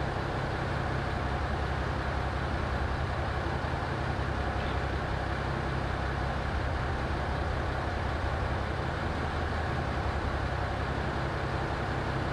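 Steady low-pitched machine drone with an even noisy hiss above it and no distinct knocks or clicks.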